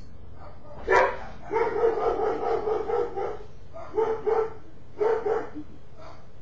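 Repeated animal calls: one sharp call, then a long broken run of calls, followed by three shorter ones.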